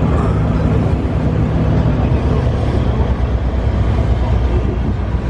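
Drag race car engine idling steadily, a continuous low rumble with some voices faintly mixed in.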